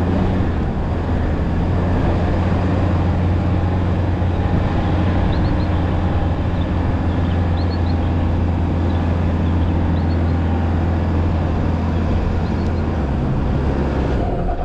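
Four-wheel-drive's engine running hard under load as it drives up a soft sand dune track, with a steady engine note that drops near the end.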